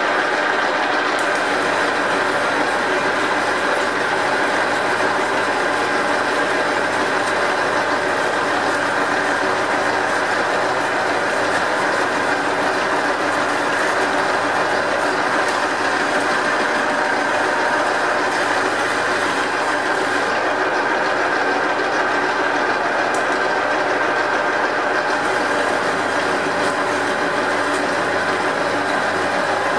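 Metal lathe running steadily under its gear drive, a constant whirring with several steady tones, while a boring bar takes a light tidy-up cut inside the workpiece's bore.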